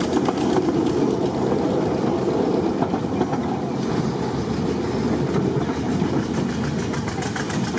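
Engine of a small narrow-gauge locomotive running steadily, heard from the open passenger car coupled just behind it.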